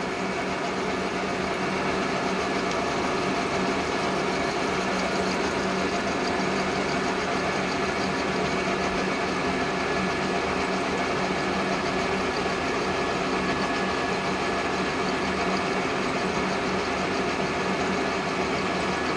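Milling machine running at a slow spindle speed, its end mill cutting into a steel socket under slow manual feed: a steady machine drone with several steady tones and no break.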